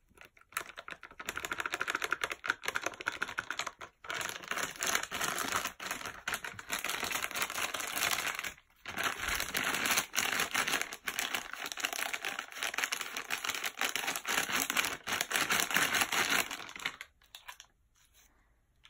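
Foil-lined pouch crinkling and crackling without a break as it is shaken and squeezed to empty protein powder into a jar. It pauses briefly near the middle and stops near the end.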